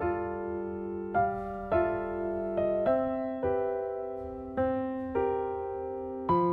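Gentle piano background music, soft chords and notes struck at a slow, steady pace.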